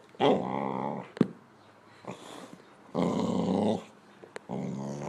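Boxer dog 'talking': three drawn-out, growly moaning vocalizations, with a fainter short one between the first two.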